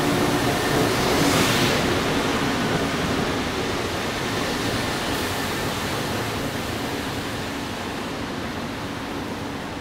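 Rubber-tyred Taipei Metro Wenhu Line train departing, its running noise a steady rush that fades slowly as the train pulls away.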